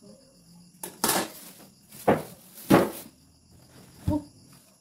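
Cardboard box and plastic packaging being handled: several short rustling, scraping bursts, then a soft knock near the end.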